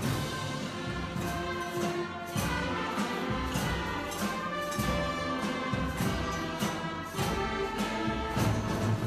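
Orchestral music from a large ensemble of young players, with held notes and percussion strikes every second or so.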